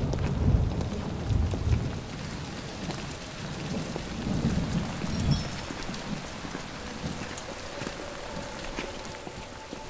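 Steady rain falling, with low rolling thunder rumbling twice, in the first two seconds and again around the middle.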